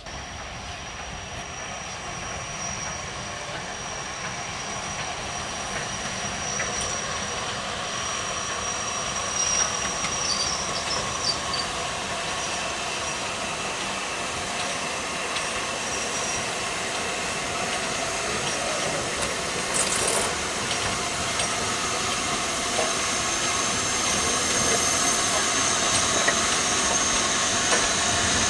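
LMS 8F 2-8-0 steam locomotive No. 48624 hauling passenger coaches, growing steadily louder as it approaches: a hiss of steam over the rumble of the train on the rails, with a short sharp sound about twenty seconds in.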